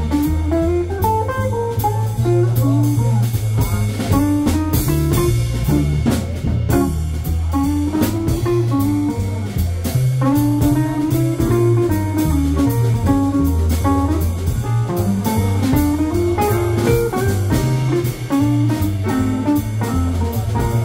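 Live jazz combo playing: an archtop electric guitar carries a single-note melodic line over double bass, piano and drum kit with ride cymbal.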